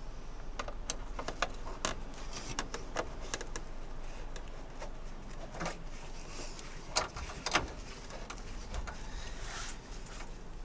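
Hand tool clicking, tapping and scraping on metal as bolts are screwed in to fit a handle inside a truck cab. The clicks are irregular, with the sharpest pair about seven seconds in.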